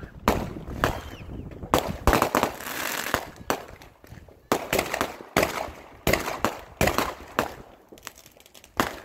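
Aerial fireworks going off: a rapid, irregular series of sharp bangs from bursting shells. About two seconds in there is a stretch of hissing.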